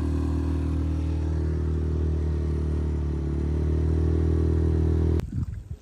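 Outboard motor on a small boat running at a steady speed, a little louder about four seconds in, then cutting off suddenly near the end.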